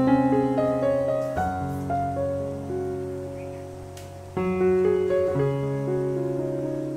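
Background music: a piano playing a slow melody over chords that ring and fade.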